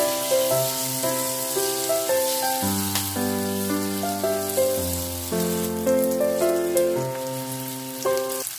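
Chive and gochujang pancake batter sizzling in hot oil in a frying pan as it is spread out with a wooden spoon, a steady hiss. Background music with a melody plays over it.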